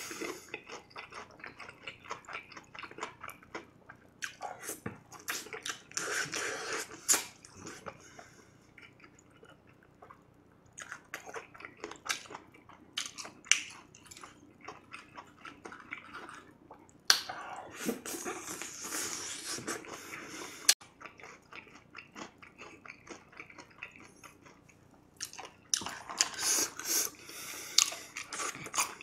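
Close-miked chewing and biting of sauced fried chicken: a drumstick's crispy batter crunching in short bursts, with quieter pauses between mouthfuls.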